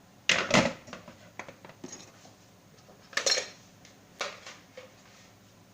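Kitchenware clattering as it is handled: a loud clatter just after the start, another about three seconds in, and a shorter knock just after four seconds.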